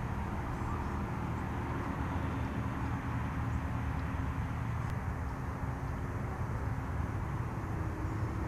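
Steady low drone of distant engine noise over outdoor ambience, with one faint click about five seconds in.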